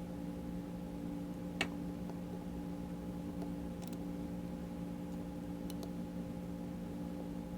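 A few small, sharp clicks of tools and watch parts being handled, one louder click about a second and a half in and fainter ones later, over a steady low electrical hum.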